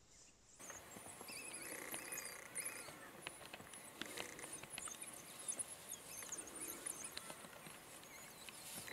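African wild dog pups giving high-pitched twittering squeaks and chirps, with rustling and small clicks of movement in dry grass.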